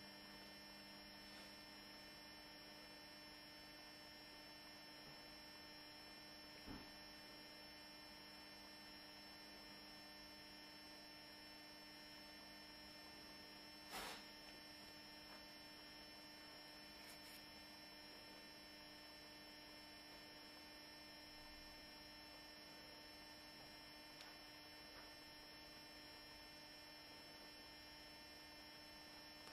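Near silence with a steady, faint electrical hum made of several fixed tones, broken by two faint clicks, the louder one about halfway through.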